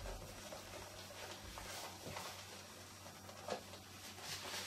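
Faint rustling and rubbing of a paper towel wiping softened sticker glue off a plastic blister pack, with a soft tap about three and a half seconds in.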